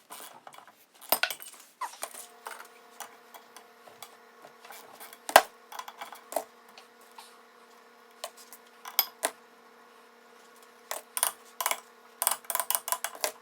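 Metal engine parts clinking and tapping as they are handled on a bench: scattered sharp clicks, one louder knock about five seconds in, and a quick run of clinks near the end. A faint steady hum runs underneath from about two seconds in.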